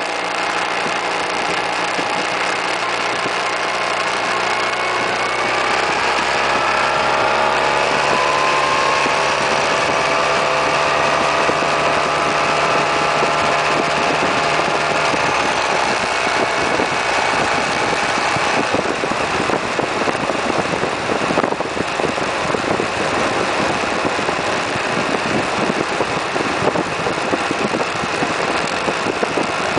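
Suzuki Burgman 650 scooter's parallel-twin engine pulling away, its pitch climbing steadily as it accelerates. About halfway through, wind rushing over the microphone at road speed covers the engine with a rough, fluttering noise.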